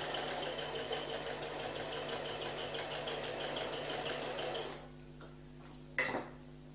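Domestic electric sewing machine stitching a seam through velvet, running steadily with a fast, even needle beat, then stopping a little under five seconds in. About a second later comes a single short, sharp knock.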